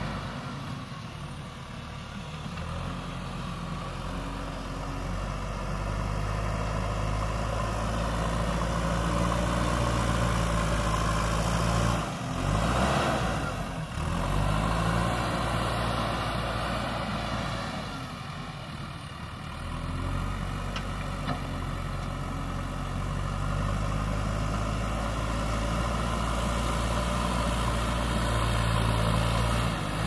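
JCB 3DX backhoe loader's diesel engine running as the machine drives and works its front loader bucket in soil. The engine note dips and swells twice midway.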